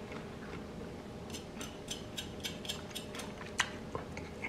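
Faint, crisp crunching clicks, about three or four a second for a couple of seconds, from chewing crispy-skinned smoked chicken.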